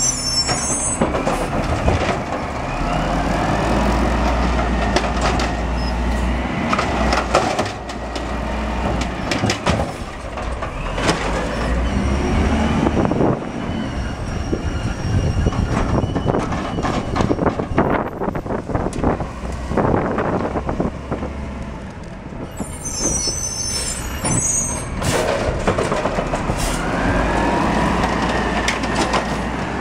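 Diesel engine of a 2001 Peterbilt garbage truck with an Amrep automated side-loader. It revs in rising whines as it drives the hydraulic arm that grabs, lifts and dumps the carts, with sharp clanks of the carts and arm. The air brakes hiss twice: right at the start and about three quarters of the way through.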